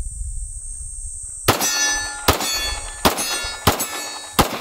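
Five pistol shots about three-quarters of a second apart, each of the first four followed by the ringing clang of a hit steel target; the last shot is a miss, with no ring after it. A steady high insect buzz runs underneath.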